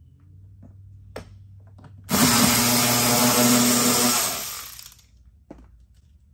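Cordless electric ratchet spinning for about two seconds, backing a door-panel bolt out, its whir then winding down. A light click of handling comes about a second in, before the ratchet starts.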